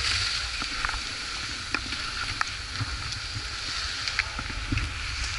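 Skis sliding over groomed snow: a steady hiss broken by scattered small clicks and crunches, over a low rumble.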